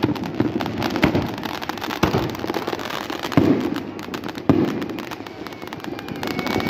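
Fireworks going off: about five loud bangs, roughly a second apart, over a dense steady crackle, easing off after about five seconds.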